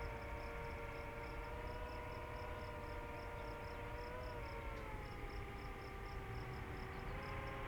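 Distant whine of a DJI FPV drone's propellers, holding a steady pitch that wavers briefly and dips slightly in the second half as the throttle changes. Insects chirp faintly at about four chirps a second behind it.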